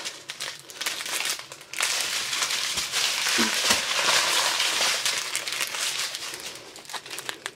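Plastic strip of sealed diamond-painting drill bags crinkling and rustling as it is handled, quieter near the end.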